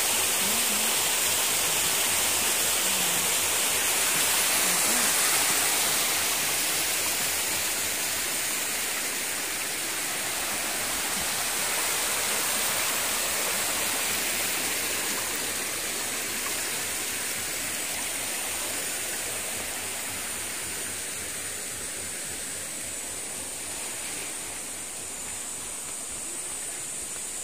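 Waterfall: a steady rush of falling water that slowly grows quieter through the second half.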